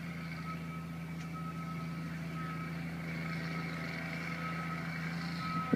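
Steady mechanical hum of a ski-area conveyor-belt (magic carpet) lift's drive, a low drone with a thin whine above it; it stops shortly before the end, followed by a brief knock.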